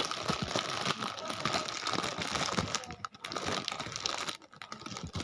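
Parcel packaging crinkling and rustling as it is handled and pulled open, with brief lulls about three and four and a half seconds in.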